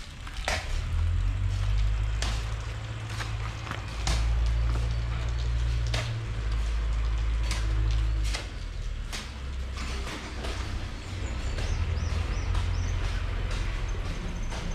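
Low, gusting rumble of wind buffeting the microphone, with scattered sharp clicks and knocks.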